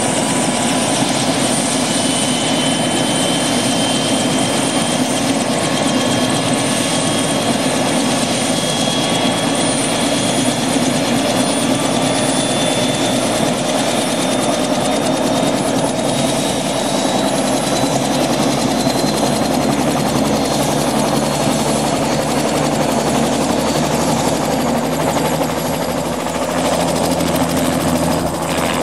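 Bell 206 JetRanger helicopter running on the ground with its rotors turning. A steady turbine whine from its Allison 250 turboshaft sits over the rotor noise, and the whine rises slowly in pitch as the engine comes up to speed.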